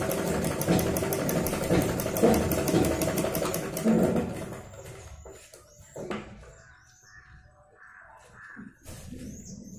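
Domestic sewing machine stitching cloth, a fast, even clatter of needle strokes that stops about four seconds in. After it come a few faint clicks as the cloth is handled, and birds calling in the background.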